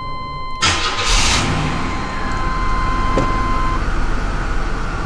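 A GMC Jimmy's engine starts with a short crank and catches about half a second in, then settles into a steady idle.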